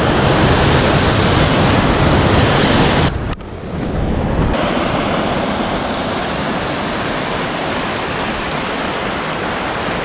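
Rushing water of a mountain river, a loud steady hiss of noise. About three seconds in it drops away for a moment, then returns slightly quieter and steady.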